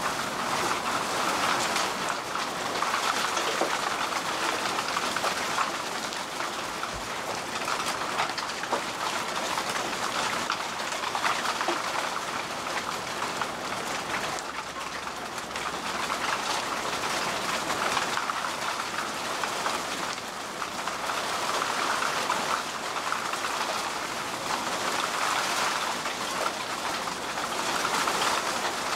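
Heavy rain pouring steadily onto the wet road and standing floodwater, rising and falling gently in strength.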